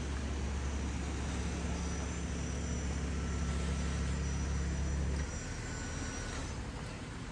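Low steady rumble, like a running engine, that stops abruptly about five seconds in, over a constant outdoor hiss. A faint thin high whine fades out shortly after.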